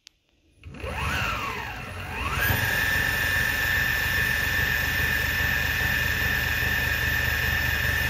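Electric skateboard's belt-driven brushless motors spinning the 200 mm wheels under remote throttle. The whine rises, dips, climbs again about two and a half seconds in, then holds steady at high speed over a low rumble.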